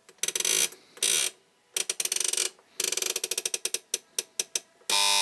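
Seiko DP666T flip alarm clock's alarm-setting knob being turned, ratcheting in several bursts of rapid clicks. Near the end the clock's alarm starts, a steady electric buzz.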